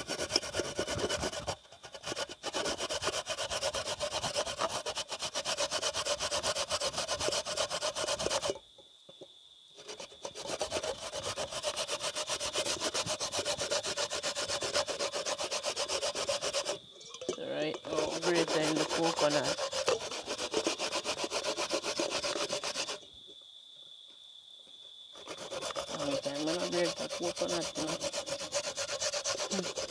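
Rapid, even rasping strokes of food being grated on a flat metal hand grater into a stainless steel bowl, broken by a few short pauses.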